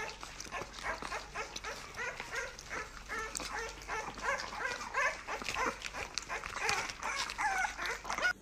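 French bulldog vocalising in a rapid string of short calls that rise and fall in pitch, several a second.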